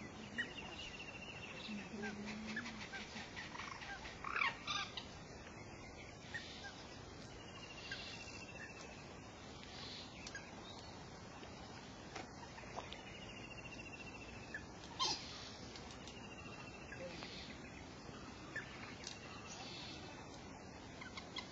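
A bird's short, falling trill, repeated four times a few seconds apart, over faint outdoor background noise, with two sharp clicks that are the loudest sounds.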